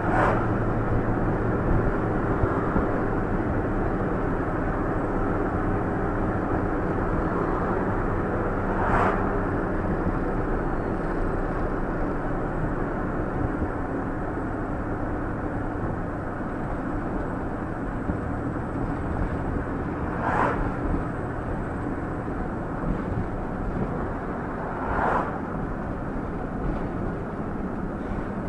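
Van engine and road noise, heard from inside the cab while driving with a trailer in tow. The drone stays steady, with three brief louder sounds along the way.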